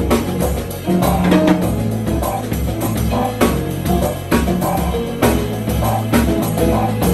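Live jazz trio playing: electric bass, drum kit and keyboards, with a steady beat and a sustained bass line.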